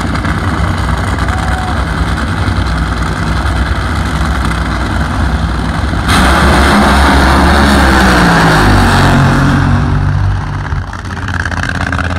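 Nitro Funny Car engines running at the drag strip starting line, then about six seconds in they go to full throttle: a sudden, much louder blast that holds for about three and a half seconds, its pitch rising and then falling, before dropping back to a lower engine rumble.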